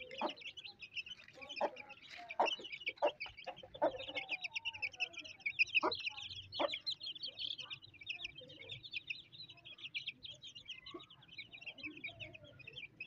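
Aseel chicks peeping continuously in a dense, high-pitched chorus. In the first seven seconds or so, the mother hen's short clucks come through among the peeps.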